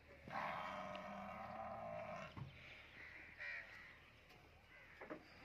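A drawn-out animal call of about two seconds, then a short, higher call about three and a half seconds in.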